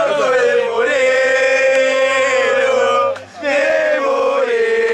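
Men's voices chanting in a group, holding long level notes of about three seconds each, with a short break about three seconds in.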